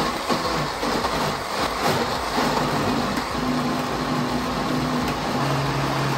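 A Bolde 430-watt electric blender runs steadily, its blades chopping chilies, shallots and garlic into sambal. It cuts off suddenly at the end as it is switched off.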